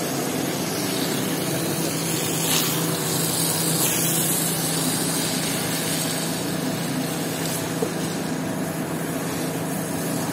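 Water jet from a hose wand hissing steadily as it sprays across a soaked, foamy rug, over the steady hum of the pump motor that drives it.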